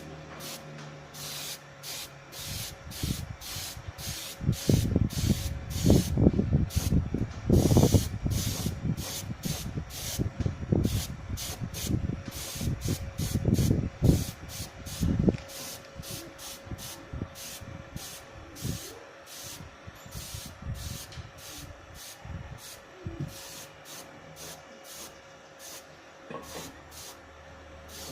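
Hissing spray in short bursts, repeating about twice a second, with a faint steady whine. Irregular low rumbling comes and goes through the first half.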